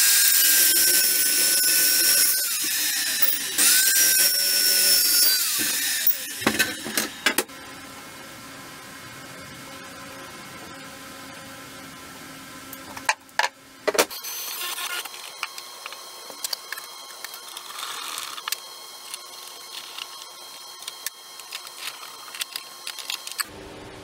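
DeWalt chop saw cutting steel flat bar in two short cuts, its motor whine dropping away as each cut ends, followed by a few sharp metal clanks. A quieter steady hiss with scattered ticks fills the second half.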